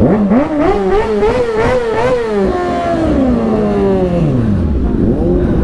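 Sport motorcycle engine revving in quick blips, its pitch rising and falling several times, then a long falling pitch over about two seconds as the revs drop, leaving a rough rumble near the end.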